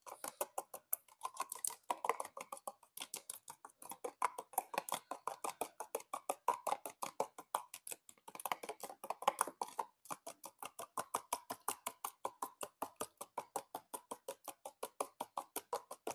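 One egg being beaten with a spoon in a small bowl: quick, even clicks of the spoon against the bowl, about five a second, with a few short pauses.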